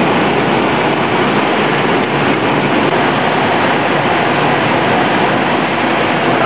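Vegetable-patty frying machine running, with a steady, even hiss of patties frying in oil.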